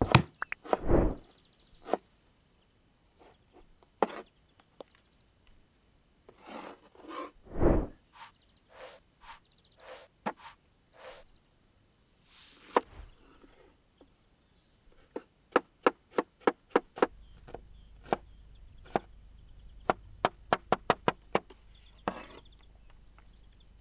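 A kitchen knife chopping on a wooden cutting board: scattered knocks and handling at first, then a quick run of sharp, even chops, about two or three a second, in the second half.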